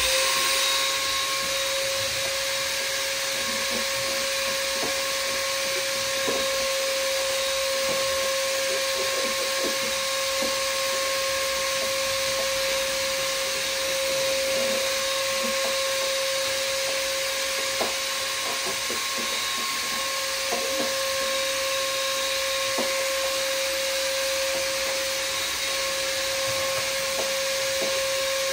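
Shop vacuum (wet/dry vac) running steadily with a high motor whine, with scattered small clicks over the rush of air.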